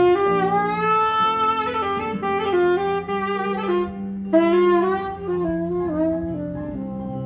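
Tenor saxophone playing a melodic solo line of held and sliding notes, with a short break about four seconds in and stopping about a second before the end. Steady low sustained accompaniment notes sound underneath.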